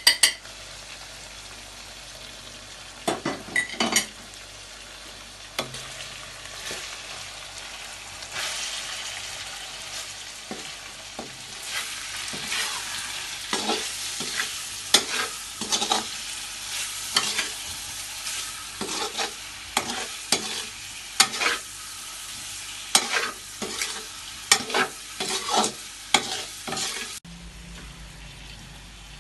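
Chicken and ground spices frying in a pan with a steady sizzle while a spoon stirs them, scraping against the pan again and again. The stirring is sparse at first, comes thick and fast through the second half, and stops abruptly near the end.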